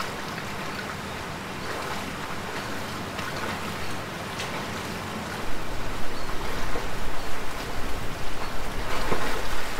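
Swimming-pool water splashing and lapping as a person swims, over a steady hiss; the splashing grows louder and choppier about halfway through.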